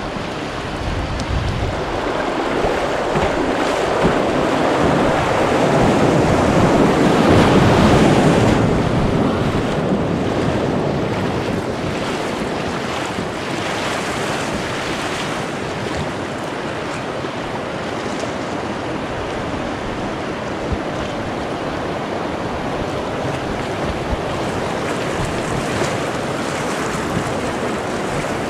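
River water rushing over a shallow riffle and splashing around an inflatable kayak, with wind buffeting the microphone. The water grows louder about a quarter of the way in, then settles to a steady rush.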